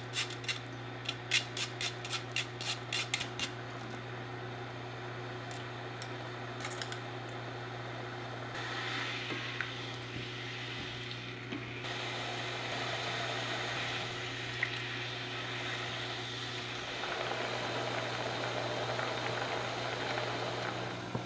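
Kitchen cooking sounds: a quick run of about ten sharp cutting clicks in the first few seconds, then food sizzling in a pan as a steady hiss that swells about eight seconds in, over a constant low hum.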